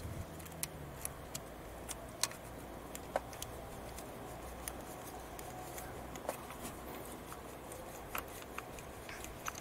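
Faint, irregular clicks and scrapes of a cleaning brush on a long rod being twisted inside the empty injector bore of a Kia 2.0 CRDi diesel head, scrubbing carbon and oil from the injector seat.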